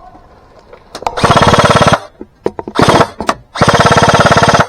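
Airsoft gun firing three fully automatic bursts, a fast rattle of about twenty shots a second, with a few single clicks between them.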